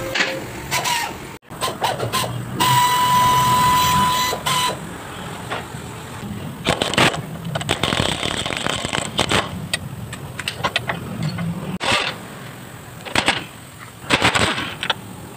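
Workshop tool noise during suspension-arm work under a lifted car: a steady high whine with hiss for about two seconds, then scattered metallic clicks and knocks from tools on the suspension.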